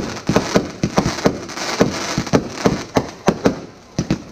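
Aerial fireworks bursting in rapid succession: a string of sharp bangs, about three or four a second, with crackling between them.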